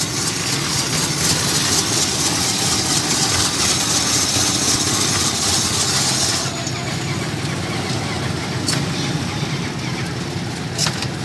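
Hand-cranked cast-iron ice shaver grinding a block of ice into shaved ice: a steady coarse scraping hiss that stops about six and a half seconds in. A steady low hum runs underneath, and a couple of sharp clicks come later.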